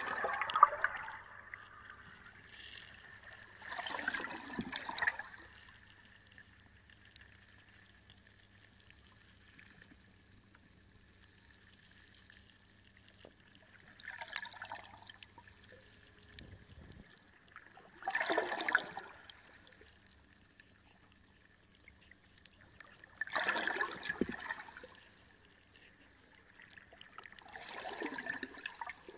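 Reef aquarium water splashing and gurgling in short surges, six in all, a few seconds apart, over a steady faint hum.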